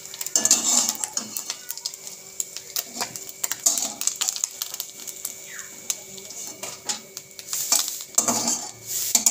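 Metal spatula scraping and clinking against a metal kadai in irregular strokes as fried small fish are lifted out of the oil onto a plate.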